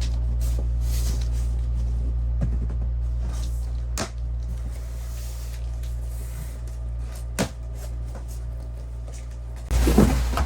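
Items being handled during the unboxing of a pull-out cabinet shelf kit: two sharp knocks about four and seven and a half seconds in, then a louder burst of clattering handling noise near the end, over a steady low hum.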